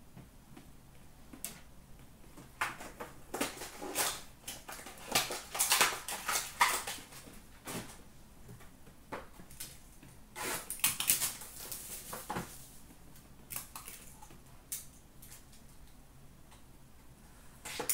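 Trading cards, card holders and packaging being handled on a counter: bursts of rustling with sharp clicks and taps, in two busy stretches with a lull between them and a few single clicks near the end.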